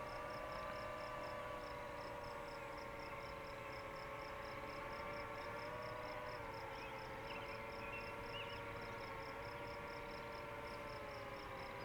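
DJI FPV drone's motors and propellers humming at a distance, a steady pitch that wavers slightly as it flies slowly. Over it an insect chirps in quick, regular pulses, about four a second.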